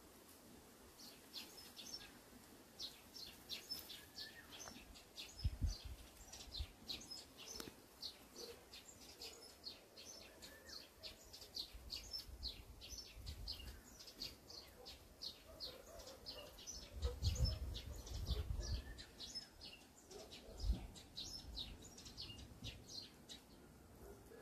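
Small birds chirping: a long run of short, high chirps, several a second. Through them come a few low thumps, the loudest a cluster about two-thirds of the way in.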